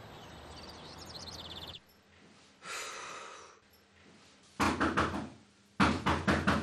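Knocking on a door: two quick runs of about five sharp raps, the second a little over a second after the first. Before them, a steady background hum cuts off after about two seconds, and a brief hiss follows.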